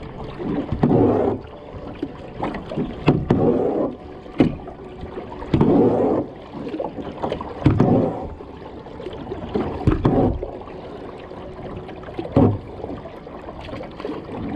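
Kayak paddle strokes in river water, with a splashing swell about every two seconds and a few sharp knocks in between.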